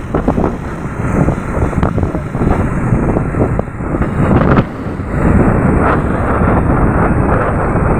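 Heavy wind buffeting the microphone while riding a motorcycle at speed, with the engine running underneath. The buffeting dips briefly about halfway through, then comes back louder.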